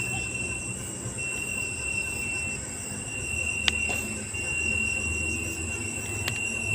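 Night insects chirring steadily with a continuous high-pitched trill. A single sharp knock comes just over halfway through, and a fainter one near the end; the explorer takes the knocking for someone striking wood.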